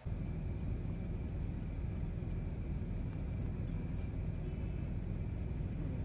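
Steady low rumble heard inside a car's cabin while the car stands at a red light, with its engine idling. A faint steady high tone sits over it.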